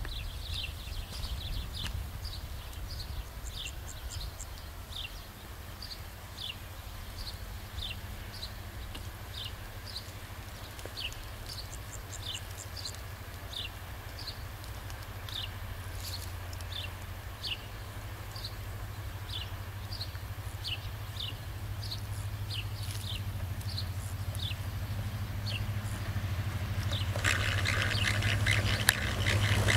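CFR Class 65 diesel-electric locomotive approaching slowly with a passenger train: a low engine drone grows steadily louder, and wheel-on-rail noise rises near the end. A bird chirps repeatedly, about twice a second.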